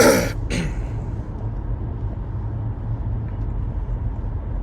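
A steady low background rumble, with a short breathy sound, like an exhale or a brief laugh, right at the start.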